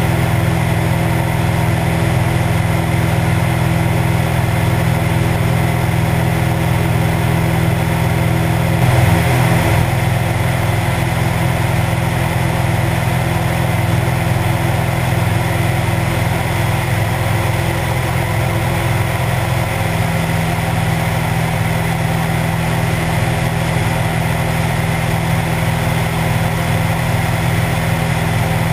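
Cessna 172's piston engine and propeller running steadily in cruise flight, a constant low drone, with wind rushing over the camera mounted outside on the wing. A brief surge and wobble in the drone comes about nine seconds in.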